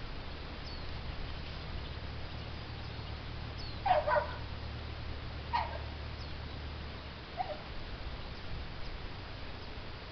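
Three short animal calls, each gliding down in pitch, about four, five and a half and seven and a half seconds in; the first is the loudest. A steady low hum runs under them and stops about seven seconds in.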